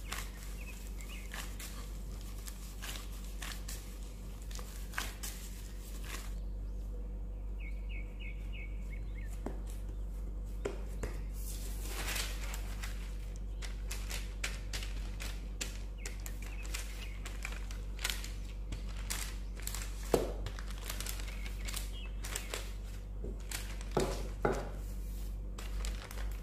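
Hand-handling sounds while making butter-cookie dough: soft dough being kneaded in a glass bowl, then baking paper rustling and crinkling as it is laid flat and smoothed by hand, with scattered light taps and clicks.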